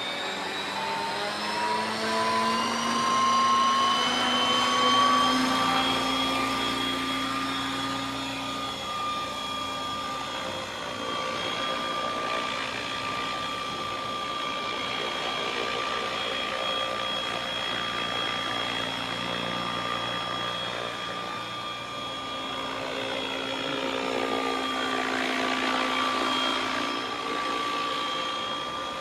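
ALIGN T-REX 550X electric RC helicopter: its motor and rotor whine rises in pitch over the first several seconds as the head spools up, then holds a steady high whine while it flies.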